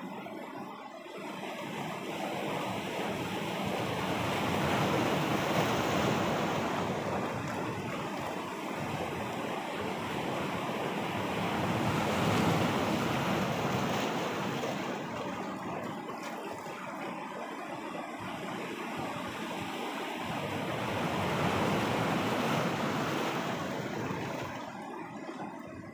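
Sea waves breaking and washing over rocks, swelling in three surges about every eight to nine seconds.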